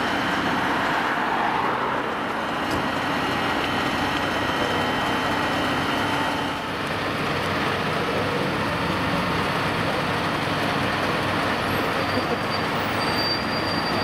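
Fire engines' heavy diesel engines running in a steady drone. About six and a half seconds in the sound changes to fire engines driving along the road past the microphone.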